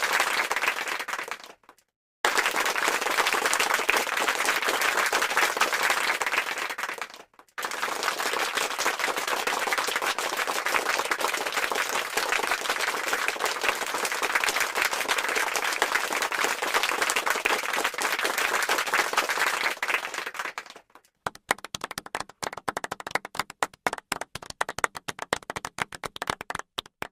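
Crowd applause: dense clapping that breaks off twice for a moment and starts again, then thins out near the end into scattered single claps before stopping.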